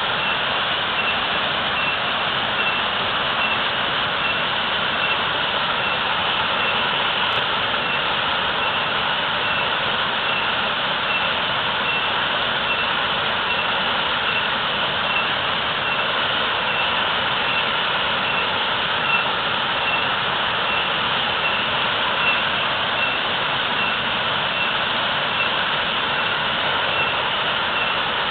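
Natural waterfall with heavy flow, water pouring and splashing in a steady, unbroken rush.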